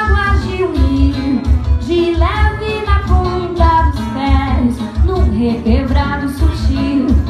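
Live samba music: a woman singing a melody with a band, over a steady drum beat.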